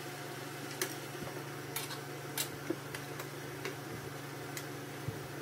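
Light metallic clicks, about six at irregular intervals, as an L-shaped hex key works the screws loose on the sheet-metal cover of a lathe's electronics compartment. A steady low hum runs underneath.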